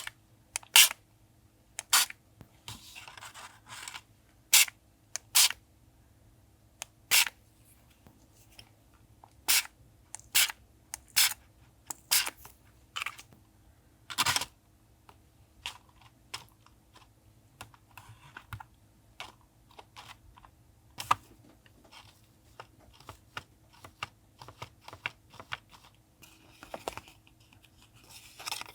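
Irregular sharp clicks and taps, a second or two apart, the loudest about halfway through, with brief soft rustling of paper twice, from hands working with journaling supplies.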